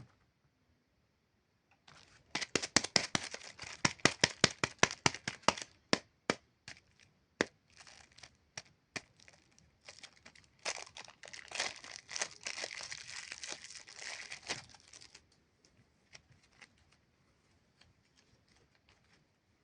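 Super clay being pulled and torn by hand, with quick, dense crackling for a few seconds, then a few scattered cracks, then a longer stretch of crinkling that stops about three-quarters of the way through.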